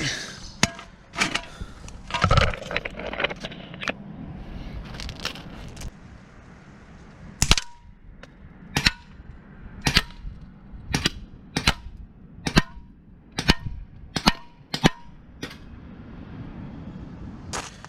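Umarex H&K USP gas blowback airsoft pistol firing single shots, each a sharp crack as the gas cycles the slide. The shots come one at a time with gaps of about a second, falling into a steadier string in the second half.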